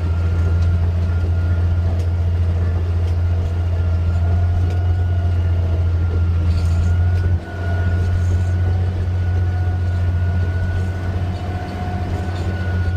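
Caterpillar D11R bulldozer's V8 diesel engine droning steadily under load from inside the cab as it pushes a full blade of dirt, with a steady high whine above the low drone. There is a brief dip in the level about seven and a half seconds in.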